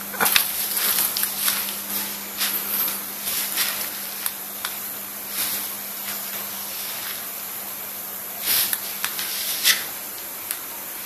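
Steady high hiss with scattered short rustling bursts, and a low steady hum that fades out midway.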